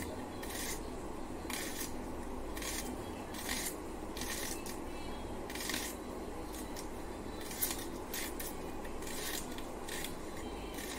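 Vegetables being sliced against a bonti, a curved kitchen blade fixed upright on a base. About fifteen short, crisp cutting strokes come at an uneven pace, roughly one or two a second, over a steady low background hum.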